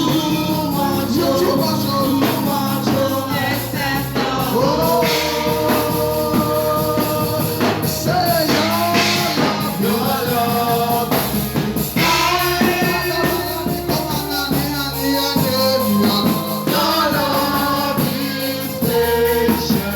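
Gospel song: voices singing a melody over a band accompaniment.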